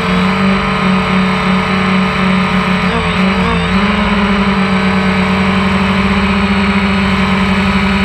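DJI Phantom 1 quadcopter's four electric motors and propellers buzzing steadily in flight, heard close up from the onboard camera. The pitch wobbles and settles slightly higher about three to four seconds in as the motor speed changes.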